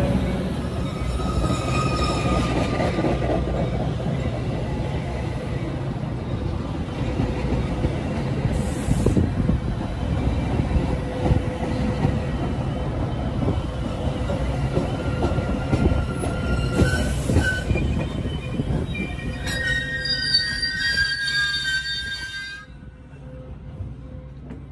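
Metra commuter train's bilevel passenger cars rolling past the platform with a steady rumble and high metal squeals as the train slows. The rumble and squealing drop away sharply about 23 seconds in as the train comes to a stop.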